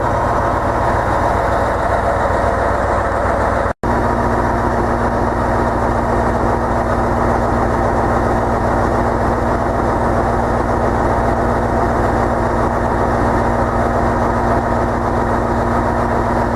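Heavy diesel machine engine running steadily and loud, with a broad low drone. It cuts out for an instant about four seconds in, and after that a steady hum sits on top of it.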